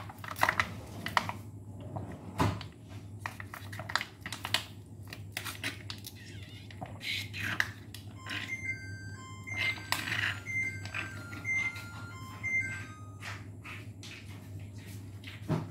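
Slurping from a juice pouch, with small clicks and crinkles of the plastic pouch, over a steady low hum. About eight seconds in, an oven timer plays a string of short electronic beeps at several pitches for about four seconds, signalling that the baking time is up.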